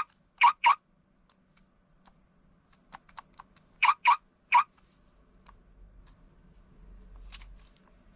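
Toy car key fob's electronic sound effects set off by its buttons: short chirping beeps, two in quick succession at the start and three more about four seconds in, with faint plastic button clicks between.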